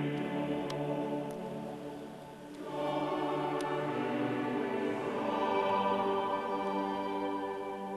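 Choral music: a choir singing slow, held chords, with a short break between phrases about two and a half seconds in before the voices swell again.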